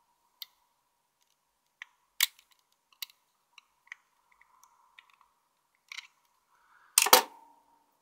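Light, scattered clicks and scrapes of a craft-knife blade working a tiny metal JST crimp terminal, prying its locking barb back up. A single much louder knock comes about seven seconds in.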